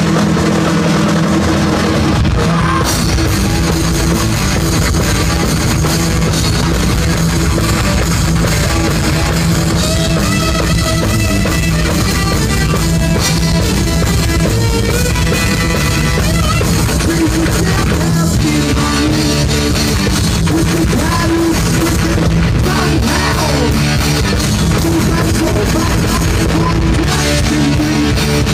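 Heavy metal band playing live at full volume: distorted electric guitar over bass and drum kit. A higher melodic line stands out through the middle stretch.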